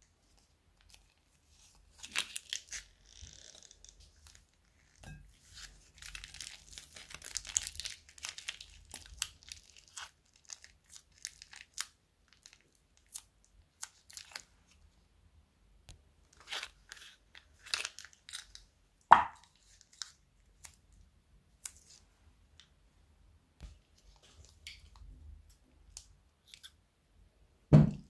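Thin plastic bags crinkling and tearing as they are opened by hand and squeezed out, with scattered small crackles and rustles. Two louder sudden sounds stand out, one about two-thirds through and one near the end as a bag of yellow slime is squeezed out into a glass bowl.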